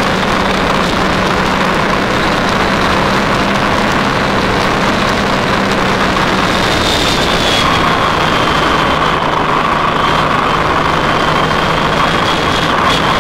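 Motorcycle engine running steadily at low speed while lane splitting between lines of cars, under a constant rushing noise. The engine note drops slightly a little past halfway.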